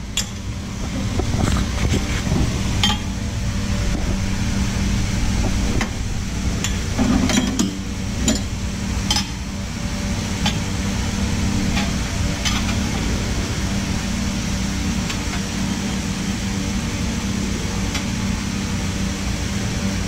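Steady low machine hum with scattered light metal clicks and knocks as steel plates and a hex socket are set on a press bed, made ready to press out a fan-motor bearing.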